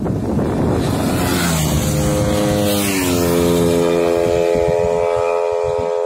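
Two single-cylinder sport motorcycles, a Yamaha R15 V3 and a modified Honda Winner, pass flat out at top speed. Their rush and engine note rise as they approach, the note drops in pitch as they go by about three seconds in, then a steady high engine note fades as they pull away.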